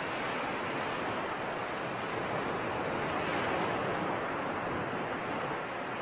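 Sea surf washing in a steady rush of water noise, swelling slowly to a peak about halfway through and easing off near the end.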